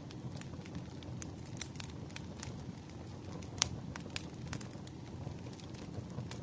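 Wood fire crackling, with scattered small pops over a low steady rumble and one sharp, louder pop about three and a half seconds in.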